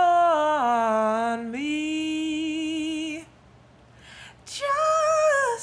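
A solo alto voice singing a cappella on wordless vowels: a long held note that steps down about half a second in and climbs back about a second later, a pause about three seconds in, then one more note that falls away at the end.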